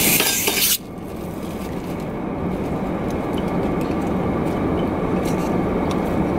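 Steady low rumble inside a car cabin, with a few light clicks of forks against glass mason jars as salad is picked out. A loud hiss at the start cuts off suddenly about a second in.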